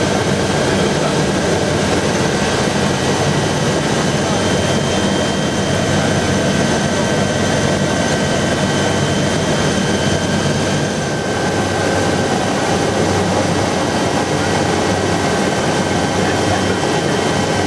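Aérospatiale SA 315B Lama helicopter in flight, heard from inside the cabin: the Turbomeca Artouste turboshaft's steady high whine over the continuous low drone of the rotor and transmission, holding the same pitch and level throughout.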